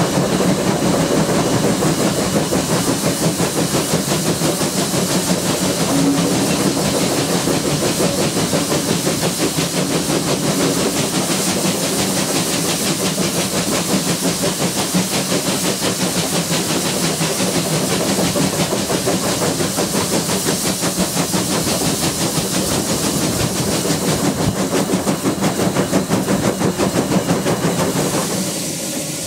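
Saddle-tank steam locomotive running, heard from its footplate: a steady, rapid beat of exhaust and running gear over rail noise.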